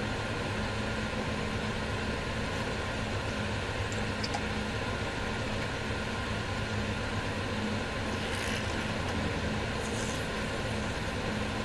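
Steady idling engine heard from inside a stopped vehicle: an unbroken low drone under an even hiss.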